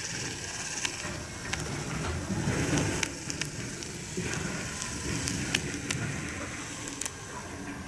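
Greenmax N-gauge Kintetsu 12410 series four-car model train running past on banked TOMIX track: a steady low rumble of wheels and motor with scattered sharp clicks from the wheels on the rails.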